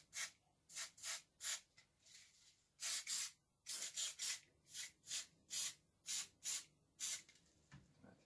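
Aerosol glass and mirror cleaner sprayed in quick short bursts, two or three hisses a second, with one longer double burst about three seconds in, stopping about seven seconds in.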